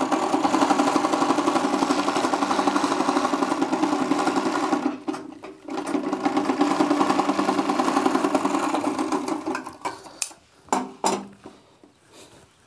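Usha three-thread interlock (overlock) sewing machine running at speed as it stitches a fabric edge, with a brief pause about five seconds in. It stops near the ten-second mark, followed by a few short knocks.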